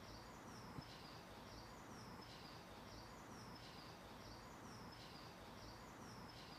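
Near silence with a faint, high, short chirp repeating evenly about every 0.7 seconds over a low hiss.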